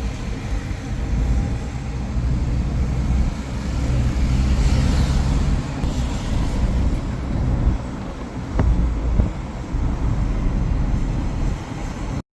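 Car driving: a steady low rumble of engine and road noise, cutting off abruptly near the end.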